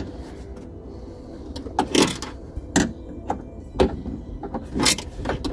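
Short knocks and scrapes of hands and tools on the metal parts of a Ford Fiesta Mk4's door handle mechanism, about six of them at irregular intervals, as a replacement handle is fitted.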